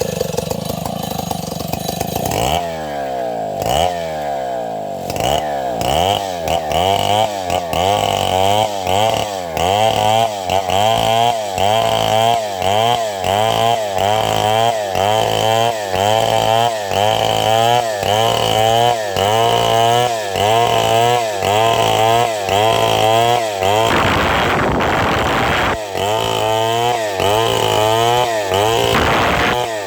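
Two-stroke chainsaw cutting wood, its engine note rising and falling in a steady rhythm of about one and a half swings a second, with a harsher stretch a few seconds before the end.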